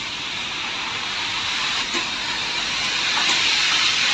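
Tram running along the track, heard from inside the passenger cabin: a steady rushing hiss of wheels on rail that slowly grows louder.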